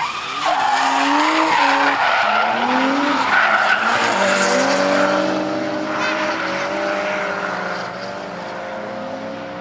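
Drift cars sliding sideways through a bend one after another, engines revving up and down over loud tyre squeal. The noise is loudest in the first half and eases a little after about five seconds.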